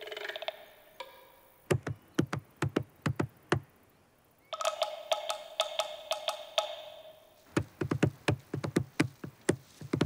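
Two runs of quick, sharp knocks on wood in an uneven, drum-like rhythm, with a held musical tone of a few seconds between them.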